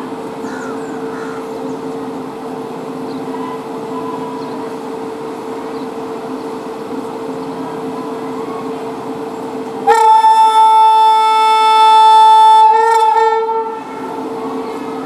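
Steady hum of a departing Indian Railways train, then about ten seconds in the locomotive's horn sounds one long blast of roughly four seconds, with a brief wobble near its end.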